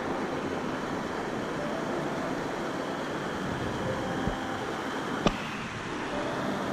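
Steady rush of small waterfalls pouring over rock into a plunge pool. A single sharp click about five seconds in.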